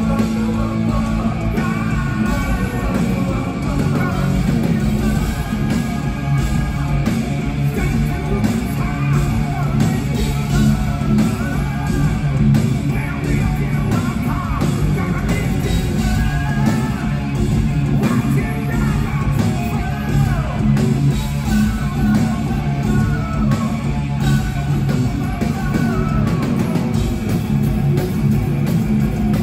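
Live rock band playing loud: electric guitars, bass and drums, with a voice singing over them.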